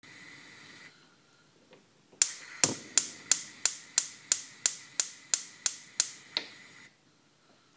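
A brief hiss, then a run of about a dozen sharp, evenly spaced clicks, about three a second, that stops abruptly.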